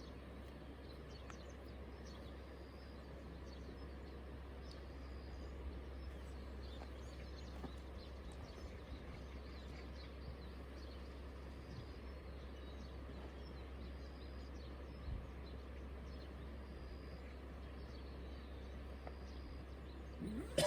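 Quiet outdoor ambience: a steady low rumble under a faint hiss, with short, faint high chirps recurring every second or two.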